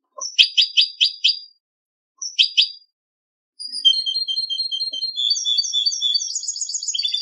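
European goldfinch singing contest-style song: a quick run of about six sharp high notes, a short group of three, then from about three and a half seconds a continuous twittering warble of rapid trills. The gaps between phrases are silent.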